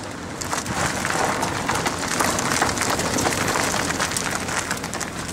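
Car tyre rolling over loose gravel and rough road edge, a dense crackle of stones crunching and pinging that sets in about half a second in, heard through a microphone mounted just beside the front wheel along with wind buffeting.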